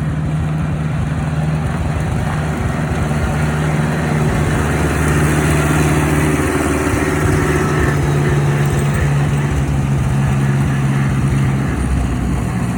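Engine running steadily with an even hum, holding a near-constant speed.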